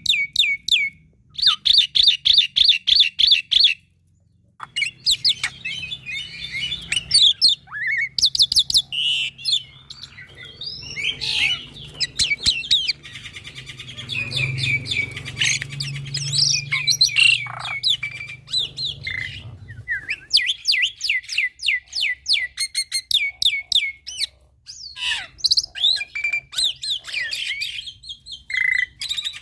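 Young black-winged starling singing a long, varied song: rapid runs of repeated chattering notes, whistled glides and harsher squawk-like calls, pausing briefly twice.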